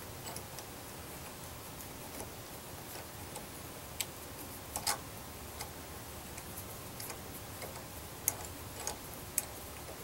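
Hand tap being turned by hand to thread a small hole in a metal antenna connector held in a bench vise: faint, irregular metallic clicks and ticks from the tap and its handle, a few sharper ones about four seconds in and near the end.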